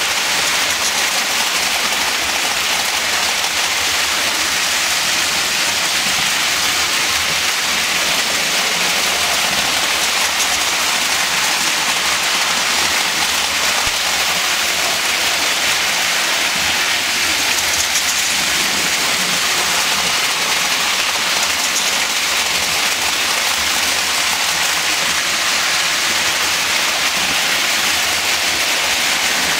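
Lionel toy trains running on three-rail metal track: a steady, hissing rolling noise of wheels and motors that does not let up.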